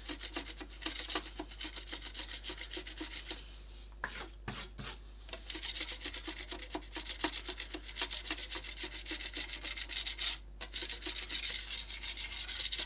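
A knife blade scraping old paint off a bakelite radio case in quick, repeated back-and-forth strokes, with two short pauses.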